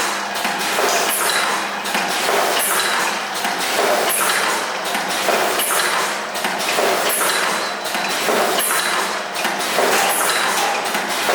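Automatic dumpling-making machine running, its mechanism cycling with a repeated pattern of clacks and knocks and a short hiss about every second and a half.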